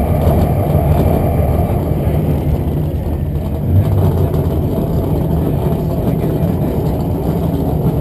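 Pickup truck engine idling steadily, heard close to its bed-mounted chrome exhaust stack as a steady low rumble.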